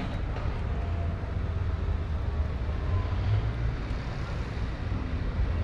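Steady low rumble of street traffic and road noise heard from a moving bicycle.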